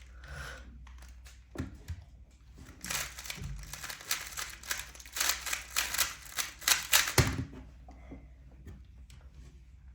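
A 3x3 Rubik's Cube being turned at speed during a timed solve: a rapid, dense run of plastic clicks and clacks lasting about four seconds. A soft thump comes before it and a heavier thump ends it.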